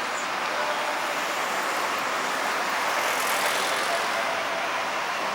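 Steady road traffic noise, an even hiss and rumble of vehicles.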